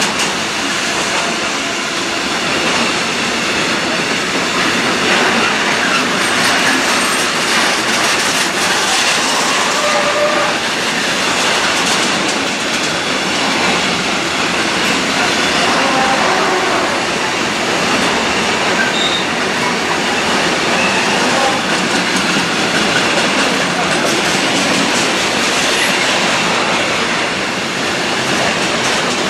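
Container wagons of a long freight train rolling past on the rails: a loud, steady rumble and rattle of wheels and wagons that keeps an even level throughout.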